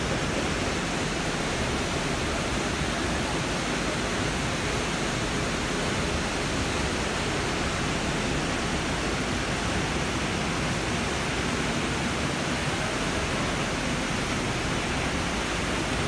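A 25-foot waterfall's steady rush of white water plunging into its pool, an unbroken even roar with no change in level.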